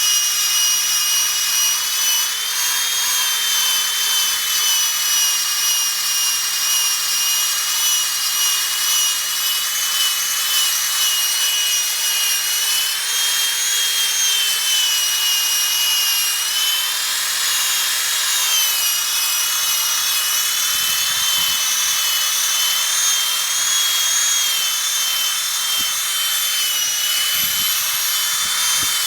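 Electric drill spinning a Powerball foam polishing ball, buffing polish into a boat's plastic nameplate: a steady high-pitched motor whine that wavers slightly in pitch, with the rub of the ball on the surface.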